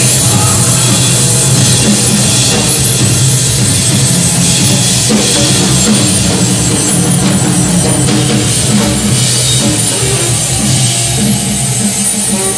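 Loud live noise music: a drum kit played hard under a dense, unbroken wall of droning electronic noise.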